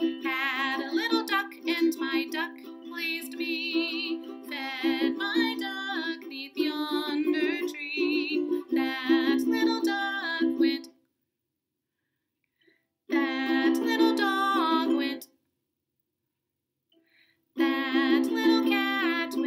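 A woman singing while strumming chords on a ukulele. Near the middle the music stops dead twice for about two seconds, with short bursts of singing and strumming in between.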